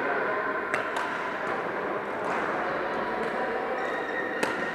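Badminton rackets striking shuttlecocks: a few sharp, crisp hits, the loudest near the end, over steady hall background noise.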